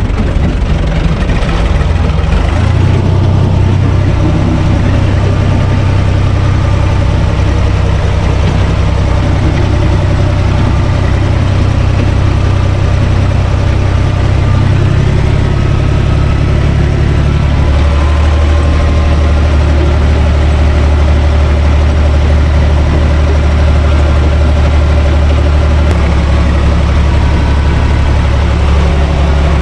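Universal 445 DT tractor's diesel engine running steadily under way, heard from inside the cab. About halfway through its note drops in two steps to a lower pitch.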